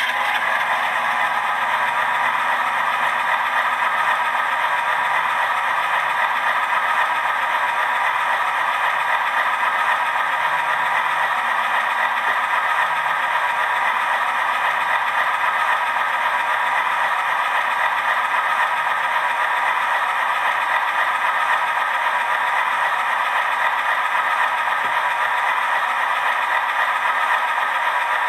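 ESU LokSound sound decoder in an HO scale GE C39-8 model locomotive playing a steady, rattly diesel running sound through its small speaker, thin in bass.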